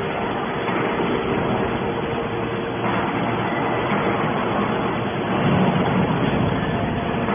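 Aluminium can baling machine running: a steady mechanical drone with a faint steady hum, growing a little louder in the second half.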